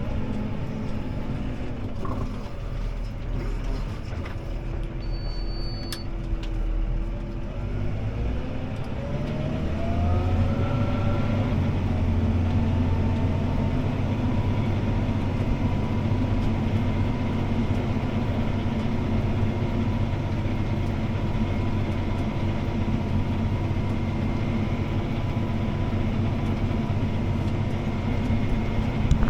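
CLAAS ARION 650 tractor's six-cylinder diesel engine heard from inside the cab, pulling a disc harrow. Its pitch rises as it revs up about a third of the way in, then it runs steadily under load.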